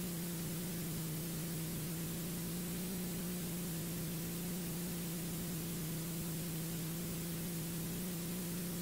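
A steady low hum with an even hiss over it, unchanging throughout: electrical background noise left on the recording, with no speech or music.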